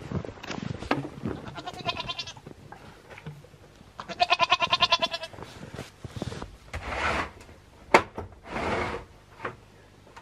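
Goats bleating: a short quavering bleat about two seconds in, then a louder, longer quavering bleat about four seconds in. A single sharp knock near the end is the loudest sound.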